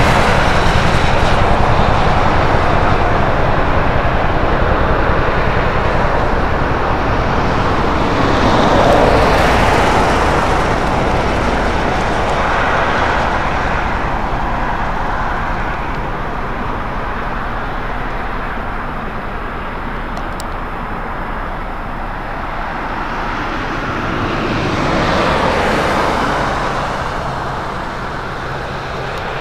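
Highway traffic passing close by, cars swelling up and fading away several times, including about nine seconds in and again near the end, over a steady low engine hum.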